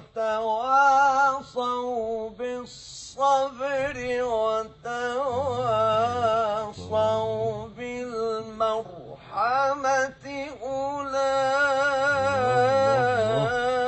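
Male Quran reciter chanting in the melodic mujawwad style in maqam Nahawand. He sings long, ornamented held notes with wavering melismatic runs, broken by short pauses for breath.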